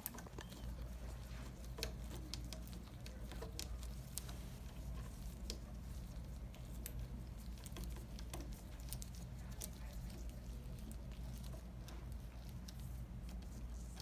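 Two size 4 Allen keys turning a screw out of a Luggie scooter's handlebar joint base: faint, irregular small clicks and scrapes of the keys on the screw, over a steady low hum.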